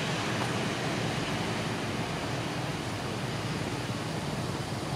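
Steady, even hiss of outdoor background noise, with no distinct calls, knocks or other events.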